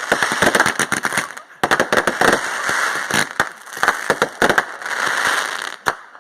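Fireworks going off: a rapid, irregular run of sharp cracks and pops over a crackling hiss, with a brief lull about a second and a half in.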